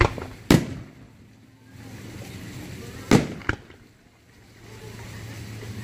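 Aerial firework shells bursting: two sharp bangs half a second apart right at the start, then two more about three seconds in. A rushing noise rises and falls between the pairs.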